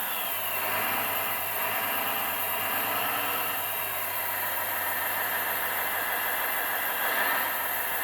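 1/14 scale RC hydraulic excavator running, its sound module playing a simulated engine sound along with the hum of its hydraulic pump as several hydraulic functions work at once. The engine sound is proportional to the hydraulic work and shifts slightly in pitch, rising a little near the end.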